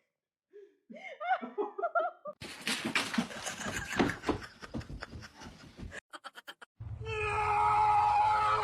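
A person laughing, followed by a stretch of noise with many quick clicks and knocks. About seven seconds in, a steady held tone starts over hiss.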